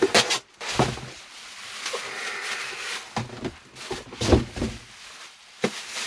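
Cardboard box and plastic wrapping rustling and knocking as a plastic-wrapped water heater cylinder is lifted out of its packaging. Several knocks, the loudest a little over halfway through.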